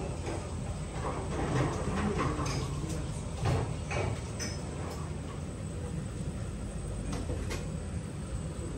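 Restaurant room noise: a steady low rumble with a few light clicks of chopsticks and tableware.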